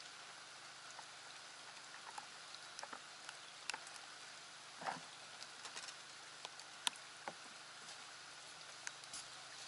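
Light rain pattering: scattered drop ticks, one louder tick near the seven-second mark, over a faint steady hiss. About halfway through comes one short rising squeak.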